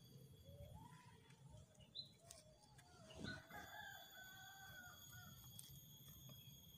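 A rooster crowing faintly: one long, wavering crow that starts about half a second in and lasts about four and a half seconds.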